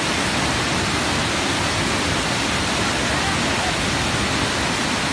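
Floodwater from an overflowing lake pouring over a stepped stone weir: a steady, unbroken rush of water.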